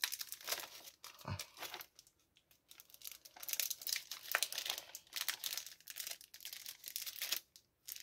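Thin clear plastic packaging crinkling and crackling as hands handle it and slide a silicone stamp sheet out. The crackles come irregularly, with a short lull about two to three seconds in.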